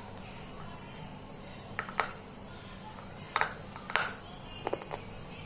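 Slate cubes being chewed close to the mouth: a few sharp, irregular crunches, the loudest about two seconds in and again near four seconds.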